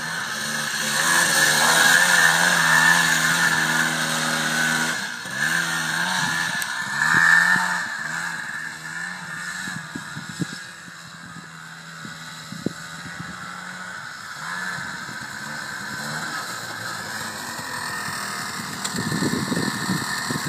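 Honda Odyssey FL350 buggy's 350 cc two-stroke single-cylinder engine revving up and down as it drives over gravel. It is loud and near at first, fades as the buggy pulls away, and grows louder again near the end as it comes back close.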